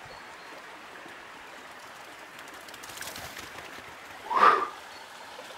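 Walking on a woodland path with a stream running in the background, with a short, loud burst of noise about four and a half seconds in.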